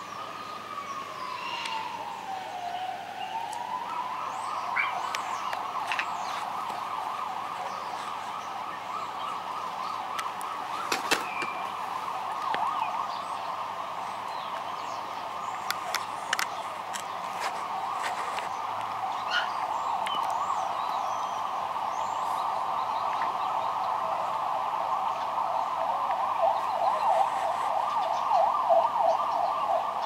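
Emergency-vehicle siren: a slow wail rising and falling in pitch, switching about four seconds in to a fast warbling yelp that carries on and grows a little louder near the end. A few sharp clicks are scattered through it.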